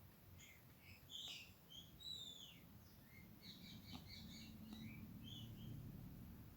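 Faint high chirps of small birds: short scattered notes, a few sliding down in pitch.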